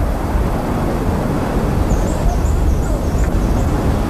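Steady deep roar of a burning gas well blowout, the fire jetting from the well. A few faint high chirps come through in the middle.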